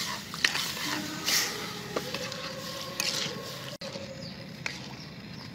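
Metal ladle stirring a thick sauce in a steel wok, scraping the pan with a few sharp clinks of metal on metal.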